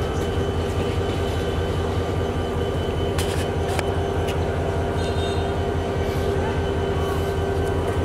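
Diesel locomotive engine running steadily: a constant low hum with a held tone above it. A few sharp knocks come a little past three seconds in.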